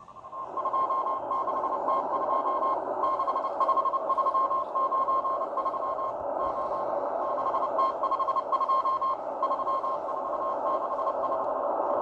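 Morse code from the M12 Russian number station: a tone of about 1 kHz keyed on and off in irregular dots and dashes, sending random letters and numbers. It plays over a steady hiss of shortwave band noise through a Tecsun H-501X receiver's speaker in upper-sideband mode.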